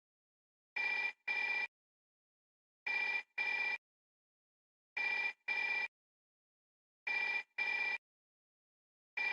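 Old telephone ringing in a double-ring cadence: two short rings in quick succession, then a pause of over a second, repeating regularly. Four double rings are heard, and a fifth begins near the end.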